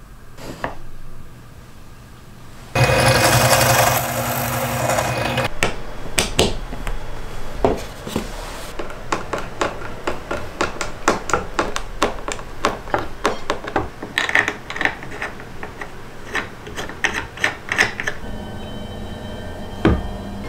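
Wood screws driven by hand with a screwdriver through steel hinges into plywood: a long run of sharp clicks and wooden knocks. A few seconds in, a louder burst of noise lasts about two and a half seconds.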